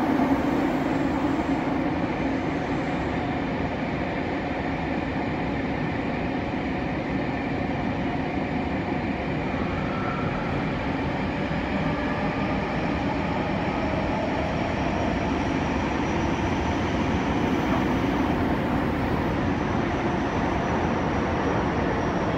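Interior running noise of a Nagoya subway 6050 series train with Toyo IGBT-VVVF traction equipment: a steady rumble of wheels on rail, with faint tones drifting slowly in pitch.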